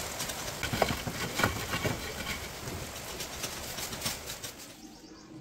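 Steel hand trowel scraping and tapping wet cement mortar along the top of a brick wall, a run of short scrapes and knocks that is thickest in the first two seconds and dies away near the end.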